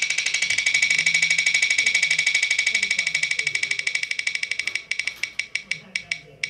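The Wheel of Names website's tick sound, played through a tablet's speaker as the on-screen wheel spins: a rapid, even run of clicks that slows about five seconds in to single ticks spaced further and further apart as the wheel comes to rest.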